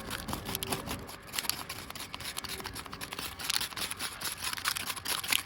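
Washing machine in a hard spin, its drum and the loose contents inside clattering in a dense, fast rattle of sharp clicks that stops suddenly near the end.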